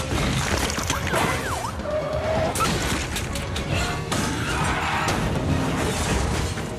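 Action-film car-chase soundtrack: music under crashes and smashing debris, screeching tyres and engines, as a dragged steel vault and police cars crash through the street. Sharp crash hits come about two and a half and four seconds in.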